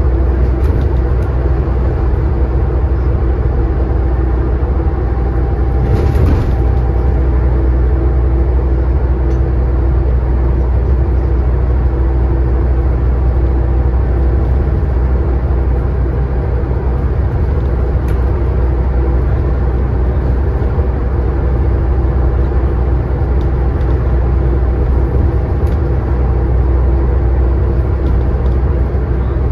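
Scania N94UD bus with ZF Ecomat gearbox, its engine and drivetrain running at a steady pitch with no gear changes or revving. A brief knock or rattle comes about six seconds in.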